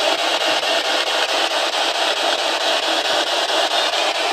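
Spirit box (sweeping radio scanner) hissing with static, its sweep chopping the hiss into a rapid, even flutter as it scans across stations.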